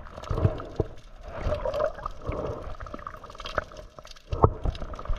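Shallow seawater sloshing and gurgling, broken by a few short knocks; the loudest knock comes near the end.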